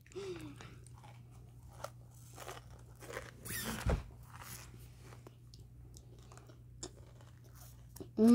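Close crunching and chewing of spicy Takis Blue Heat rolled tortilla chips, faint and irregular, with one louder noise about three and a half seconds in.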